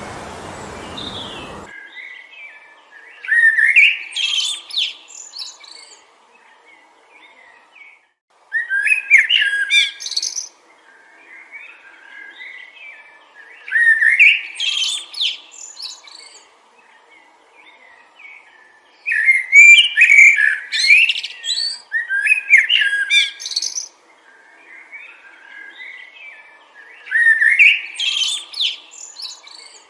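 A songbird singing short, loud phrases of quick rising and falling notes, one roughly every five seconds, with quieter chirps in between. A rushing wind noise cuts off abruptly in the first two seconds.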